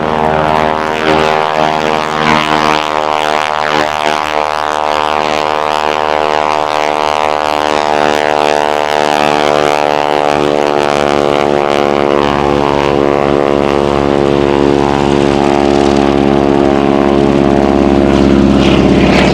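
Boeing Stearman PT-17 biplane's Pratt & Whitney radial engine and propeller running at power in a close pass, at one steady pitch and growing louder toward the end. The propeller noise comes from its pitch being flattened back.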